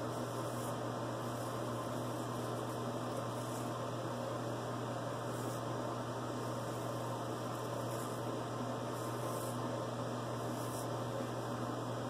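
Steady electrical hum, with several short, faint, high scraping strokes of a vintage Frederick Reynolds straight razor cutting lathered stubble against the grain.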